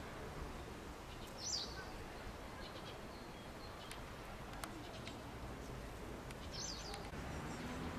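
Quiet outdoor ambience: a low steady rumble of wind on the microphone, with two short high bird chirps, one about a second and a half in and another near seven seconds.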